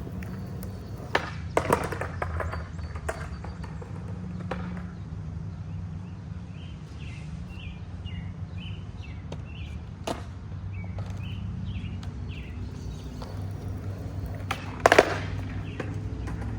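Skateboard wheels rolling over pavement with a steady low rumble, broken by several sharp clacks of the board, the loudest about fifteen seconds in.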